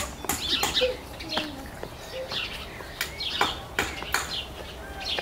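Small birds chirping: a quick run of short, sharp chirps a few tenths of a second apart, with a few lower gliding calls between them.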